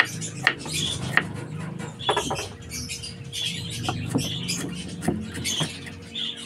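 Kitchen knife dicing cucumber on a wooden chopping board: irregular sharp chops, about one or two a second. Repeated short high chirps sound in the background.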